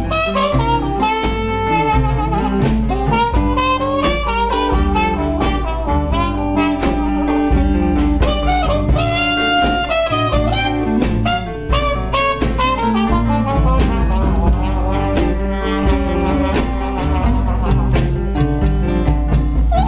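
Big band playing boogie-woogie, with a trumpet solo played through a plunger mute, its notes bending and sliding over the band's backing.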